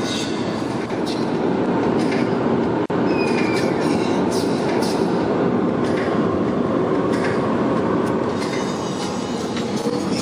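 Steady road and wind noise of a car driving at speed, heard from inside the car, with two very brief dropouts.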